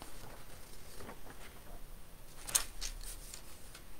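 Papers handled on a desk: a few soft rustles and clicks, the loudest about two and a half seconds in.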